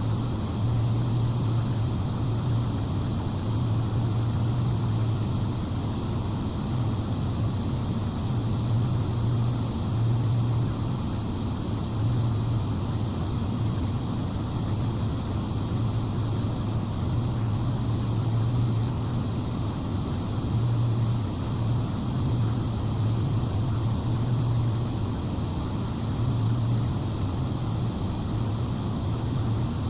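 Steady rush of air from a broadcast transmitter's forced-air cooling, with a low electrical hum that swells and fades irregularly underneath.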